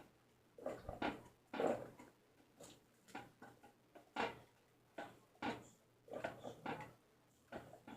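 A homemade bell rig being struck: irregular clusters of short, dull knocks and clanks, two or three strikes at a time, each dying away quickly with no long ring. A faint steady hum sits underneath.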